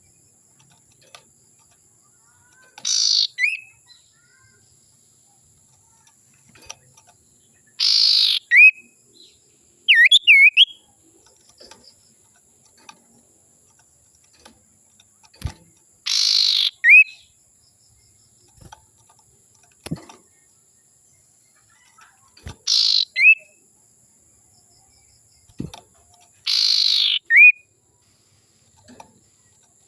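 Cipoh sirtu (iora) calling: about six harsh, raspy calls a few seconds apart, each ending in a short clear whistled note. About ten seconds in comes a quick pair of whistles.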